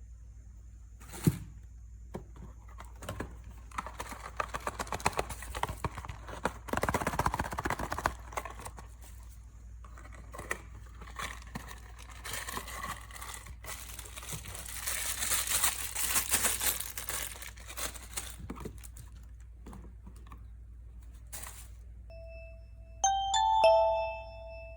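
Packaging being unwrapped by hand: crinkling and tearing of a wrapper with scattered taps and clicks, in two longer crinkly stretches. Near the end a short run of bright chime-like notes starts.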